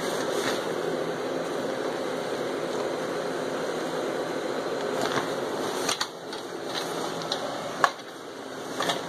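Airblown inflatable's electric blower fan running steadily as the inflatable fills with air. A few sharp clicks and knocks sound over it, the loudest near the end.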